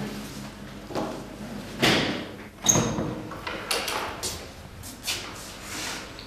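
A panelled door opening and being pushed shut, with a series of knocks and thuds, the loudest about two and a half seconds in.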